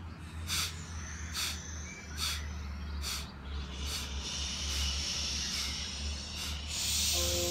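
Forceful rhythmic breaths through the nose in bhastrika (bellows) pranayama: a sharp, hissing breath a little faster than once a second, eight in a row, with a steadier hiss building in the second half. Music starts in just before the end.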